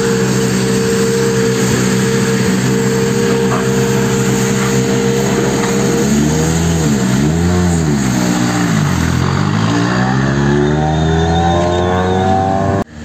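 Hyundai i20 N Rally1 rally car's turbocharged four-cylinder engine idling steadily, then blipped twice about six seconds in, before revving up in a long rising pull as the car moves off. The sound breaks off abruptly just before the end.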